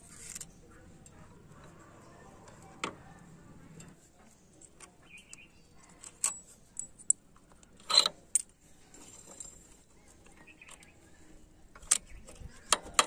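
Loose metal engine parts clinking and clicking as the clutch assembly and small gear parts are slid off the shafts of a Hero Honda Passion Pro's open crankcase. Scattered sharp clinks, the loudest about eight seconds in and a quick run of them near the end.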